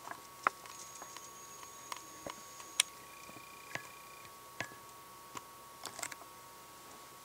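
Irregular small clicks and pops, about one or two a second, from CO2 bubbling out of an imperial stout in vigorous primary fermentation through its blow-off hose and airlock, over a faint steady high tone.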